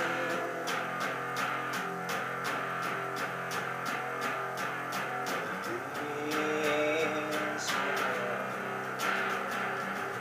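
Electric guitar being played: sustained notes over a steady pulse about three times a second, with a brighter held melodic line a little past the middle.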